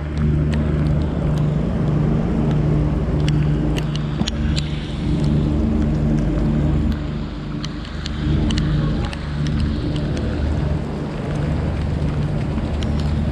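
Heavy rain falling, a steady hiss with many sharp drop ticks close by, over a steady low mechanical hum.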